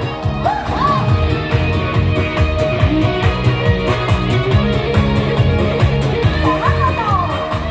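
Upbeat backing music with a steady beat, most likely an instrumental stretch of the song, with short sliding vocal phrases about half a second in and again near the end.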